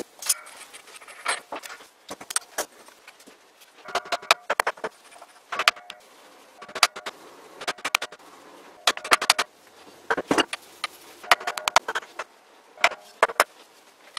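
Metal-on-metal clicks and clinks, many with a brief ring, in irregular clusters, as steel parts of a lathe headstock are handled and worked loose during spindle disassembly.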